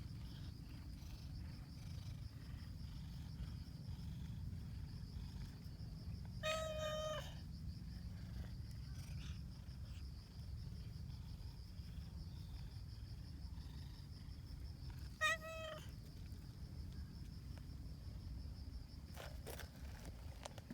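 Calico cat meowing twice: a longer meow about six seconds in and a short one near the middle of the second half.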